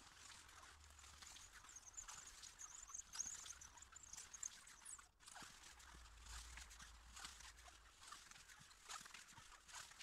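Near silence: faint scattered ticks and rustles, with a thin high twittering from about one to four seconds in.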